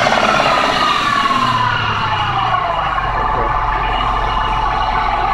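2004 Jeep Liberty engine coming down off a rev, its pitch falling steadily for about three seconds and then settling into a steady idle. The engine makes a clacking/knocking noise whenever the gas is pressed.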